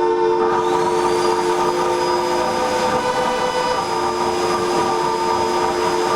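Vacuum cleaner sounded as an instrument: its air flow holds several steady whining tones at once over a hiss, like a held chord. A higher whine rises and settles about half a second in, and the lower tones drop out one after another in the middle.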